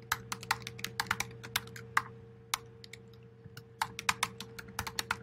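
Typing on a computer keyboard: two quick runs of keystrokes with a short pause between them, the second starting nearly four seconds in. A faint steady hum runs underneath.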